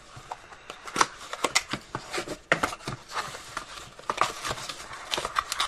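Small cardboard box being opened and handled one-handed: a string of irregular clicks, scrapes and rustles of cardboard and packaging.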